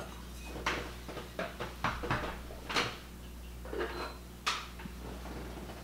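Ceramic and glass pieces being handled: about half a dozen light, separate clinks and knocks as china is picked up, moved and set down.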